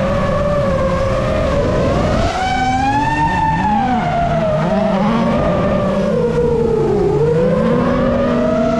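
Citroën C3 WRC rally car's turbocharged four-cylinder engine revving hard, its note climbing and dropping again and again as it works through the gears. Over it runs the louder high whine of an FPV drone's motors and propellers, wavering up and down in pitch.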